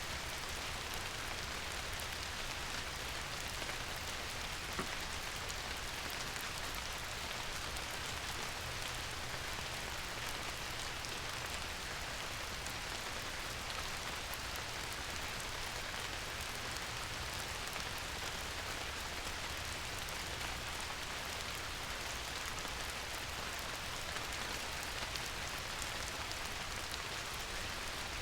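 Steady rain falling on a surface: an even hiss of many raindrops with fine individual drop taps, unchanging throughout.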